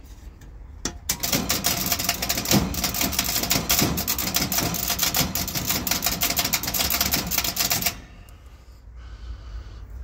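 Heat pump outdoor unit's contactor chattering: a rapid, dense clicking as it pulls in and drops out over and over. It starts about a second in and cuts off abruptly near the end. It is the sign of a fault on the reversing valve circuit, either the reversing valve or the control board.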